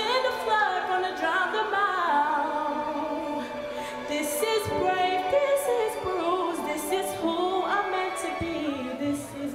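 A young woman singing a solo into a microphone, with long sliding vocal runs and held notes.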